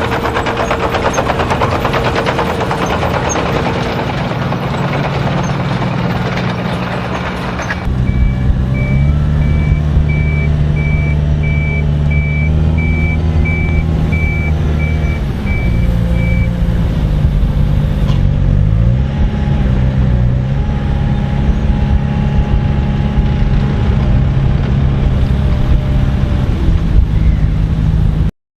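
Heavy diesel construction machinery at an asphalt milling job. For the first part it runs hard under a dense rushing noise. After an abrupt change about a third of the way in, a diesel engine rises and falls in pitch while a reversing alarm beeps steadily for about eight seconds.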